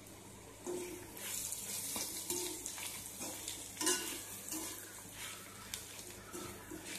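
Garlic cloves and dried red chillies being stirred in hot oil with a stainless steel slotted spatula in a non-stick pan: a light sizzle under repeated scraping strokes of the spatula across the pan, starting about a second in.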